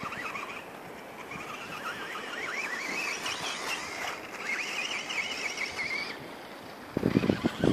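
Brushless electric motor of a 1/10-scale Quanum Skull Crusher RC monster truck whining, its pitch rising and falling quickly as the throttle is worked, stopping about six seconds in. A sudden loud rough noise starts about a second later.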